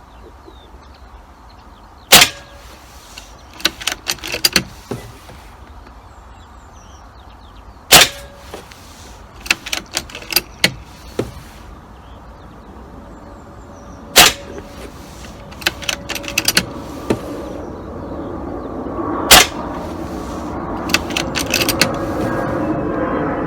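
Beeman air rifle fired four times, about six seconds apart, each sharp shot followed by a few lighter metallic clicks as the action is cycled and the next pellet loaded.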